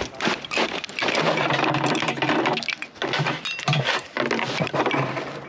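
Close, irregular crunching and rustling of crusted snow and hunting gear being handled.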